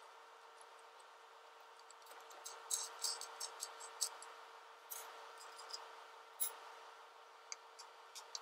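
Scattered small clicks, taps and rattles as hands work a wooden gluing clamp with metal pins loose from a freshly glued flat belt on a lathe's headstock pulley, clustered in the middle and again near the end. A faint steady hum lies under it.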